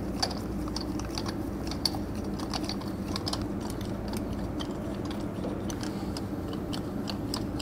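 Light, irregular metallic clicks and ticks as a socket and lug nuts are turned by hand on a tractor wheel spacer's studs, over a steady low hum.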